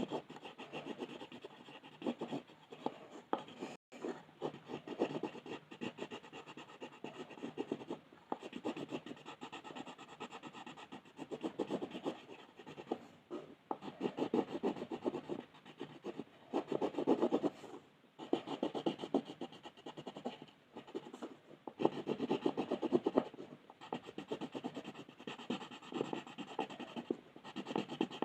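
Colour pencil shading on paper: rapid back-and-forth strokes rubbing and scratching continuously, with a few louder, denser stretches.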